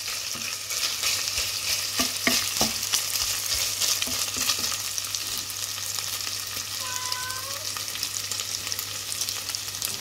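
Bacon sizzling as it fries in a pan, a steady high hiss, with a few sharp clicks of a stirring utensil against the pan about two seconds in.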